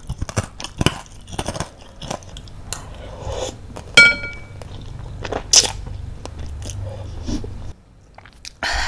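Close-miked eating sounds of spicy tapioca-meatball (baso aci) noodle soup: wet chewing and mouth clicks, with a sharp, loud slurp of noodles about four seconds in.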